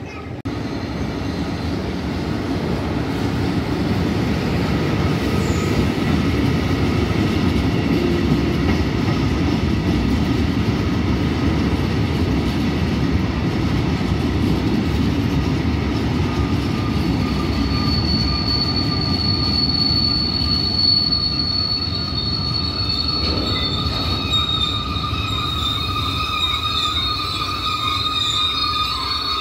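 Freight train of loaded hopper wagons rolling past at speed: a loud, steady rumble of steel wheels on the rails, building over the first few seconds. A little past halfway, a high metallic wheel squeal at several pitches joins in and carries on to the end.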